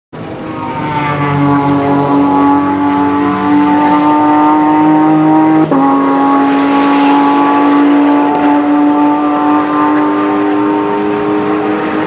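Race car engine running at high revs, starting abruptly with its pitch rising slowly. About six seconds in it breaks off for an instant and comes back a little lower, then climbs again.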